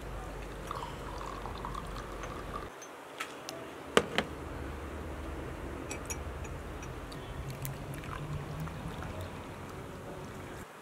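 Tea poured from a ceramic teapot through a metal mesh strainer into glass cups, a steady trickle of liquid. Two sharp clinks about four seconds in.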